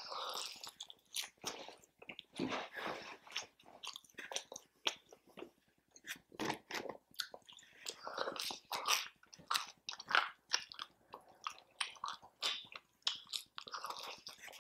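Close-miked eating: a person biting and chewing food, with irregular short mouth noises.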